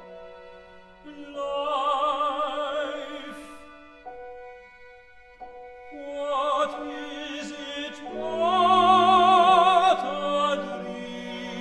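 Operatic singing with wide vibrato over orchestral accompaniment with held notes. There are two sung phrases; the second is longer and louder, peaking about nine seconds in.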